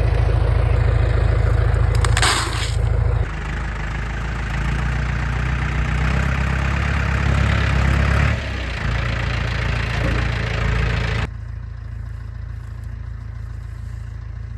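Tractor engine running, its sound changing abruptly a few times.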